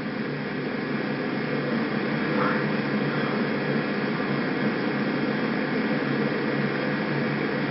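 Steady droning hum with hiss, slowly growing a little louder.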